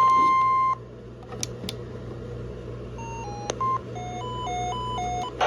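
Electronic alert tones from a weather radio during a Required Weekly Test. A loud steady tone cuts off under a second in. After a stretch of hiss with a few clicks, a quieter run of short beeps steps up and down in pitch.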